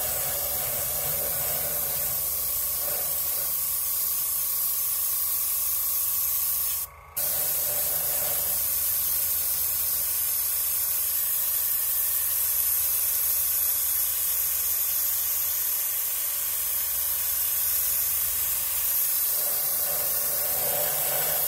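Airbrush spraying gunmetal silver base coat in a steady hiss, with a brief break about seven seconds in.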